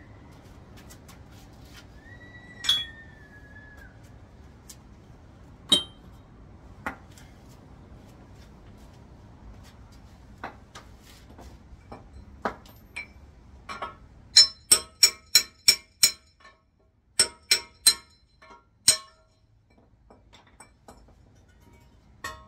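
Metal parts and tools clinking and tapping, scattered at first, then a quick run of about six ringing strikes, about four a second, followed by four more.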